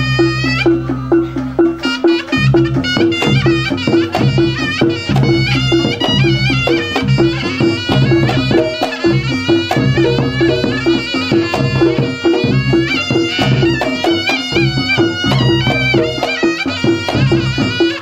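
Reog Ponorogo gamelan accompaniment: a shrill reed melody, typical of the slompret trumpet, winds through ornamented, bending notes over kendang drums and a steady, repeating percussion pulse.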